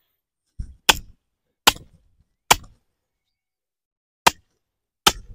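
Wooden tomato stake being driven into tilled garden soil: about six sharp knocks, roughly one every three-quarters of a second, with a pause of over a second before the last two.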